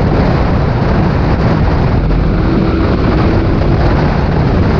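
A Mk4 Ford Fiesta stockcar's engine running hard, heard from inside the stripped cabin, buried with wind and road noise in a loud, dense, distorted wash of sound from the onboard camera.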